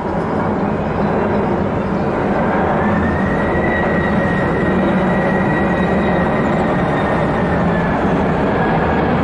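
Boeing 767-300 freighter on landing approach with gear down, passing low overhead: a steady, loud jet engine roar. A high fan whine comes in about three seconds in, rising slightly, holds, and fades near the end.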